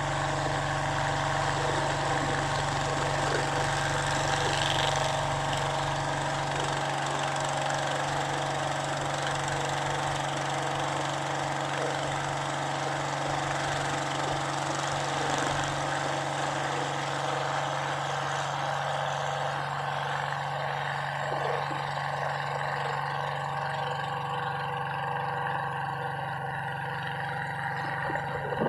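Boat engine running steadily under way, a constant drone.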